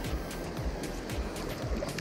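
Background music with a steady beat, over the rush of stream water.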